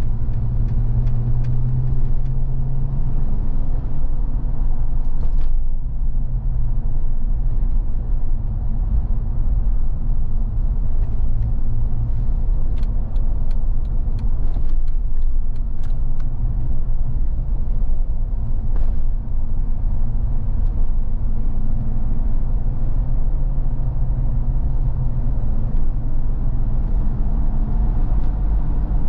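2018 Jeep Wrangler Sahara driving at town speeds, heard from inside the cabin: a steady low engine hum whose pitch shifts a little as speed changes, over tyre and road rumble. A few light clicks or rattles come through near the middle.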